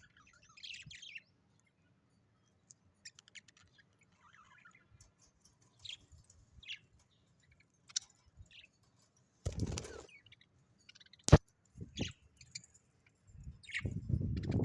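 Small birds giving short, scattered high chirps. About ten seconds in there is a brief rustling burst, then a sharp click, the loudest sound, followed by low thumps near the end.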